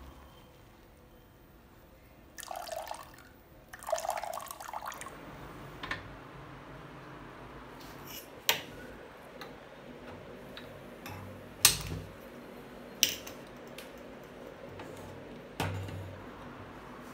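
Wet squelching as soft, freshly churned butter is scooped by hand out of a blender jar. After that come four sharp metal knocks as a metal pot is handled on a gas hob's grate.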